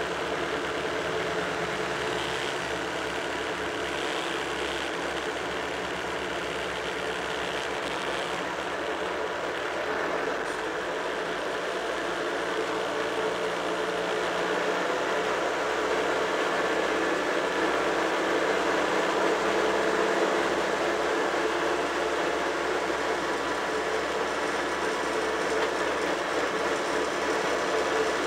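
Tractor engine running steadily as the tractor drives along the road, heard from on board; it gets a little louder about halfway through.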